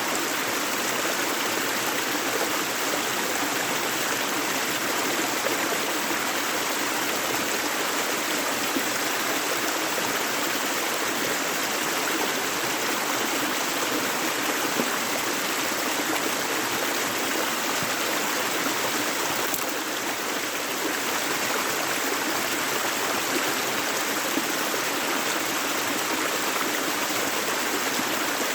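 A river flowing steadily, a constant rush of running water with a light trickling texture.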